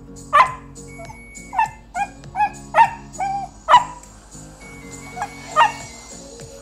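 A Shiba Inu giving a string of about nine short, grumbling yips and barks, each rising and falling in pitch, most in a quick run and two more near the end. She is vocalising impatiently, demanding to be fed a treat. Background music with steady chords plays underneath.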